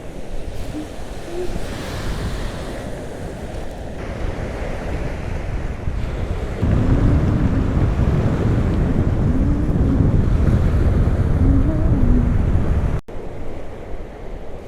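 Baltic Sea surf and wind, with wind buffeting the microphone. The buffeting grows much louder about halfway through, then drops abruptly near the end.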